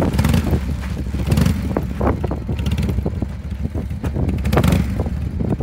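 1998 Harley-Davidson Softail Fat Boy's Evolution V-twin engine idling, a steady low pulsing beat.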